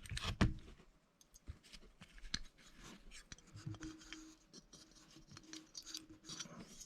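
Small clicks and light scrapes of hands working a carburetor float and its needle-and-clip into place, fumbling with the small metal and plastic parts. A faint steady hum sits under the middle part.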